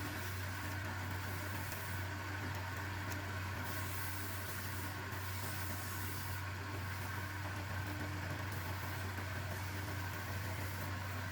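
An electric motor running steadily with a constant low hum.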